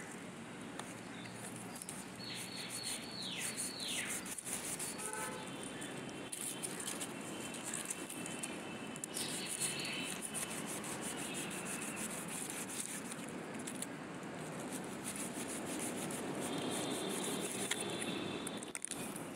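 A knife cutting and scraping at a ponytail palm's woody stem to sever an offset, with crackling, leaf rustling and handling noise close to the microphone. Birds chirp in the background, including a quick falling series of whistles about two seconds in.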